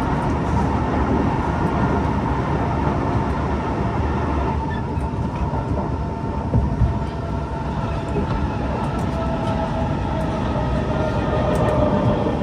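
Kawasaki C151 MRT train running along the line, heard from on board: a steady rumble of wheels on rail with faint held tones, one of which appears in the second half and sinks slightly in pitch.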